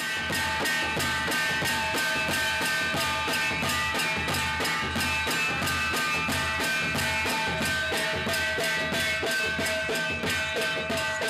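Folk drumming: a stick-beaten two-headed drum and small hand cymbals keep a fast, even beat of about four strokes a second, with steady ringing tones held over it.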